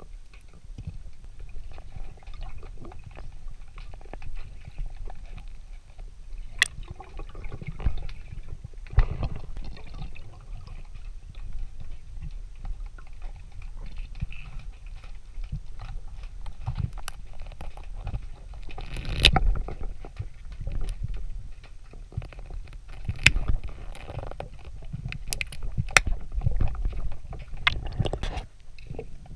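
Muffled underwater river sound heard through a submerged action camera: a steady low rumble of the water and the diver's movement, with scattered sharp clicks and knocks.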